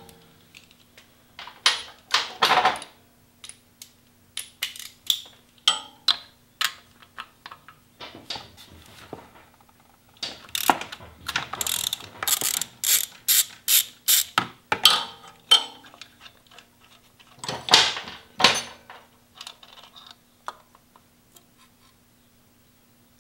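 Ratchet wrench clicking in quick runs as it undoes the 16 mm bolt holding the crankshaft pulley of a BMW R1100RT; the crank is locked so the bolt can be turned.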